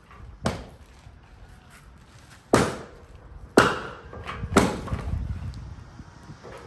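Firewood being chopped: four sharp chops, the last three about a second apart.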